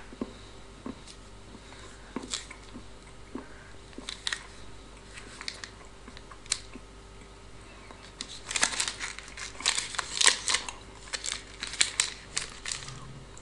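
Chocolate bar wrapper crinkling and tearing as it is unwrapped by hand. Scattered rustles and clicks at first, then a dense run of crackling about eight seconds in that lasts a few seconds.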